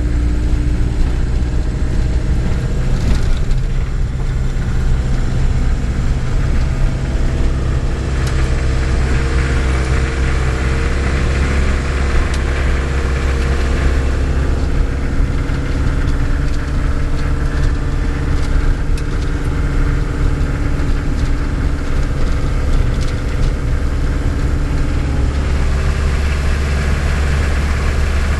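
Camper van's engine running steadily while driving along a country road, heard from inside the cab: a constant low drone with road noise that grows somewhat louder in the middle.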